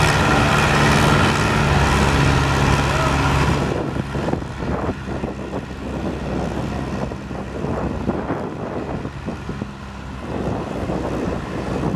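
Massey Ferguson farm tractor's engine running hard at full throttle as it drags a weight-transfer sled in a tractor pull. About four seconds in the throttle is cut as the pull ends, and the sound drops to a lower, uneven engine note with voices in the background.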